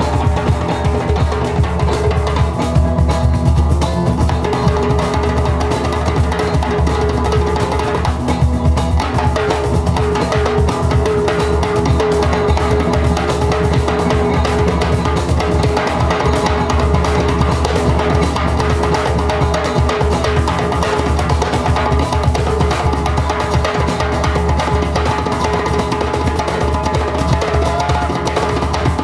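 A band playing live: a drum kit keeps a dense, steady beat on bass drum and snare under a long held note.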